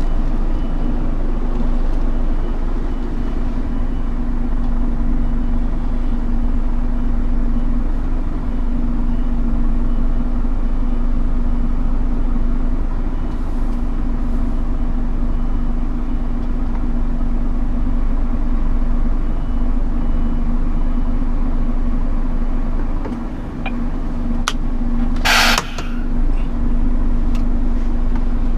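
Scania R410 truck's diesel engine running steadily at a constant speed. A brief loud hiss cuts in about 25 seconds in.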